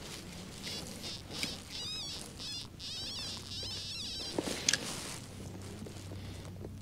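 A hand digger scraping and turning loose, dry soil. Through the middle, a series of high, warbling chirps repeats.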